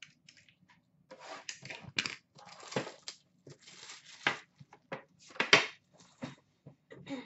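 Crinkling, crackling packaging as a box of Upper Deck hockey cards is handled and unwrapped. Irregular rustles come with a few sharper snaps, the loudest a little past halfway.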